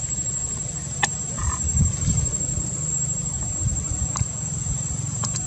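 Steady high-pitched insect drone over a low rumble, with a few faint clicks and a brief faint chirp about a second and a half in.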